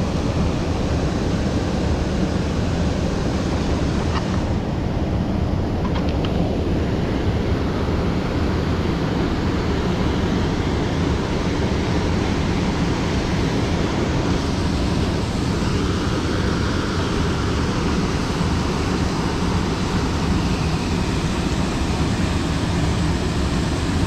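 Steady rushing of a mountain stream's flowing water, with a couple of faint clicks about four and six seconds in.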